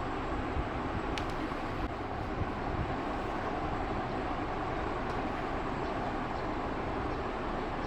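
Xiaomi E10 robot vacuum running: a steady whir of its suction fan and brushes, with a faint high whine and a brief click about a second in.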